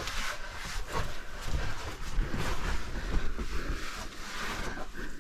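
Irregular scraping and rustling of a caver crawling over rock through a tight cave passage, over a steady low rumble.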